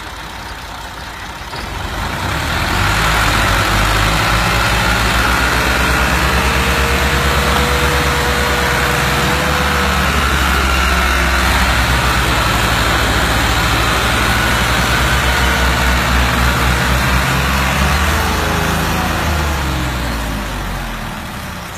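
Two diesel farm tractors pushing against each other head-to-head. About two seconds in, their engines go from a lower run up to a loud, steady labour under heavy load. Near the end the engine notes fall in pitch and die down as the push eases.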